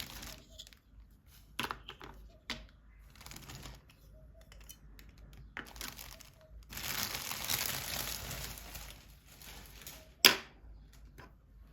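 Packaging crinkling and rustling as toys are unwrapped, with scattered light clicks from handling and one sharp click about ten seconds in.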